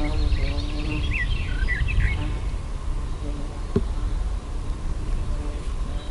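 A flying insect buzzing close by, a steady drone that breaks off and comes back, with a few short bird chirps about a second in and a single sharp click a little past halfway.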